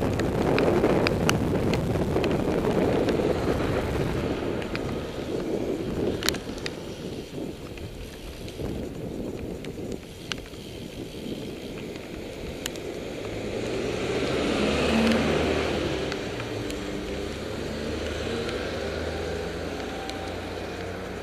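Wind noise on the microphone and tyre noise from a road bicycle coasting and slowing on a wet road, fading as it slows, with a few sharp ticks. About two-thirds through, a car passes, and a low steady engine hum comes in toward the end.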